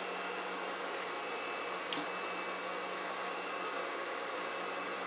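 A steady machine hum and hiss with no stitching rhythm, and a single light click about two seconds in.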